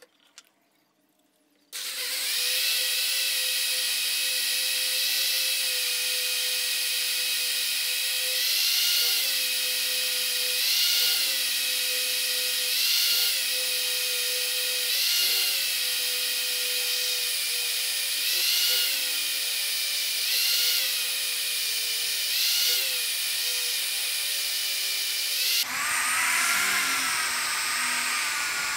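Corded electric drill boring into the hole of a wooden hammer head clamped in a vise. It starts about two seconds in and runs with a steady whine that dips and recovers every couple of seconds as the bit bites into the wood, and a lower rumble joins in near the end as it cuts deeper.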